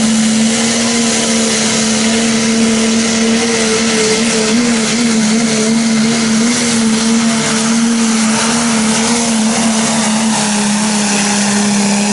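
Turbocharged diesel pickup engine held at high, nearly constant revs under full load while pulling a weight-transfer sled, with one steady engine note that wavers slightly midway. It is a 2.6-class pulling truck, limited to a single 2.6-inch turbocharger.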